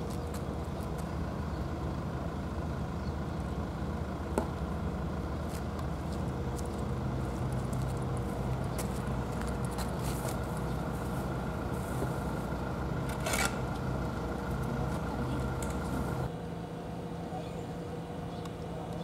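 Steady low mechanical hum with several fixed tones, like an engine or machine running nearby, with scattered faint clicks. About three-quarters of the way through it drops a little and changes to a different steady hum.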